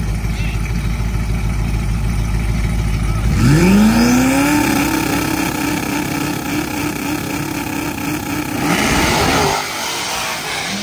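A twin-turbo Ford F-150 and a Whipple-supercharged Jeep Trackhawk idling at the start line, then launching about three seconds in with a sharp rising rev and a jump in loudness. The engine note holds high and swells again near the end as they pass close, then drops away suddenly.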